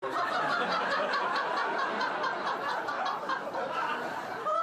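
People laughing and giggling in quick, repeated bursts, a steady stream of overlapping laughter.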